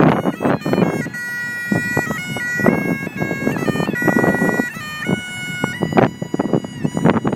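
Bagpipes playing a melody of held notes that step up and down, with bursts of rushing noise that come and go beneath them.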